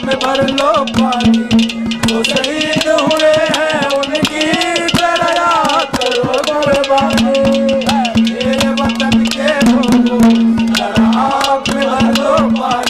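Live Haryanvi ragni folk music: a harmonium melody over a steady held note, driven by fast, dense rattling hand percussion.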